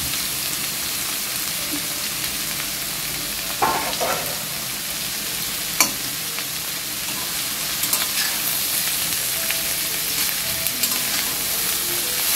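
Shredded cabbage, carrot, capsicum and beans sizzling in hot oil in a steel kadai, tossed with a steel spatula that scrapes and clicks against the pan a few times.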